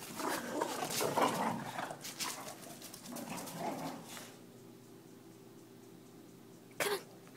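Two boxer dogs playing, with a few seconds of busy scuffling and dog noises, then one short, sharp bark near the end.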